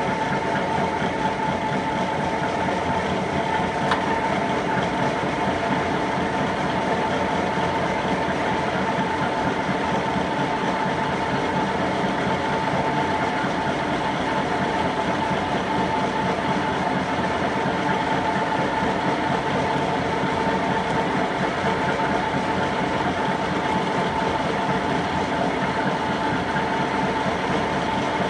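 Fellows 4-60 rack gear shaper running with its cutter ram stroking up and down and no workpiece on the table, so not cutting: a steady mechanical running noise with a constant high whine.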